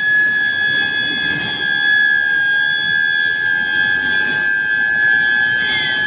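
6000 kW IGBT billet induction heater whining steadily at one high pitch while heating a glowing billet, with a low noisy rumble of plant machinery underneath.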